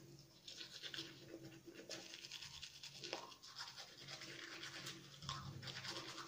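Manual toothbrush scrubbing teeth in quick back-and-forth strokes, faint, starting about half a second in.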